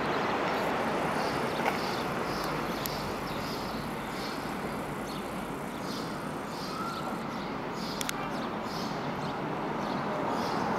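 Steady outdoor city rumble on an elevated subway line as a distant R142A 6 train approaches, growing a little louder near the end. Short high chirps repeat about twice a second over it.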